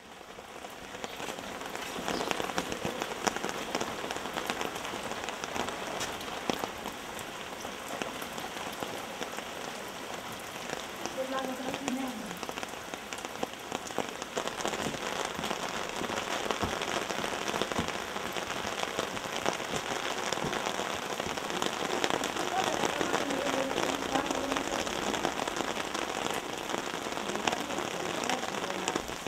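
Steady rain falling, with a dense patter of drops. It fades in over the first couple of seconds.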